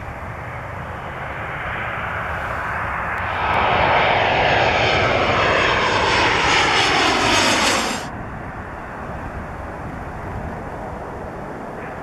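Boeing 737 on final approach passing low overhead on its CFM56 turbofans. The engine roar swells and peaks, with the fan whine falling in pitch as the jet goes by. About two-thirds of the way in it cuts to a quieter, steady jet rumble.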